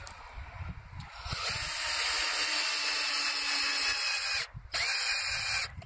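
Electric drill running a homemade countersink bit into a wooden board: one steady run of about three seconds with a high whine, a short stop, then a second, briefer run.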